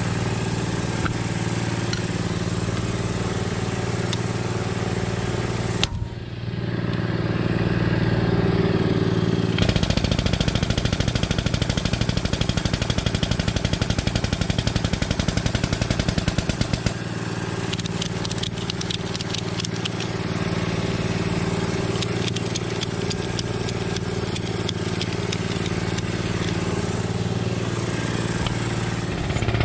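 A motor running steadily, with an even, rapid pulsing for several seconds in the middle.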